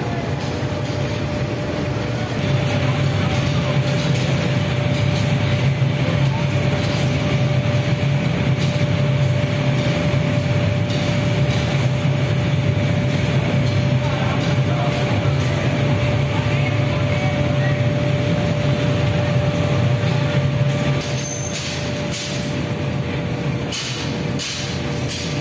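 Glass-melting furnace's burner and air blower running with a steady rumbling rush and a constant hum tone. It grows louder about two seconds in and drops back a few seconds before the end.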